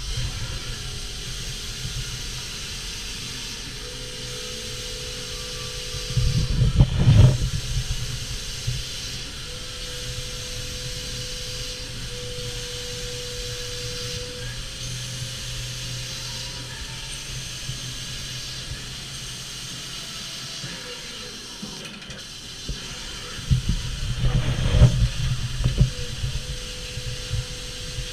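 Doosan Lynx 220LMC CNC lathe machining a 7075 aluminum puck under flood coolant: a steady hiss of coolant spray with a faint steady tone and low hum from the machine. Two louder spells of low rumbling come about seven seconds in and again near the end.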